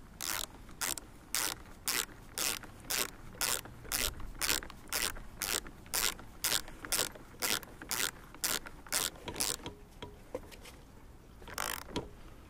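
Socket ratchet wrench tightening the fixing at the centre of a lawnmower drive wheel, its pawl clicking in a short burst on each return stroke, about two strokes a second. The strokes stop after about nine seconds, followed by a pause and one last stroke near the end.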